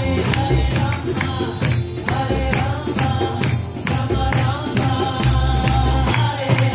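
Live kirtan music: women's voices chanting a mantra melody over a steady, quick hand-percussion beat, with low bass notes underneath.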